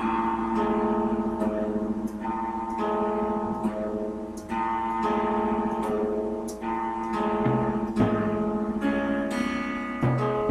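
Depressive black metal song in a slow instrumental passage: sustained, ringing chords that change about every second, with no vocals.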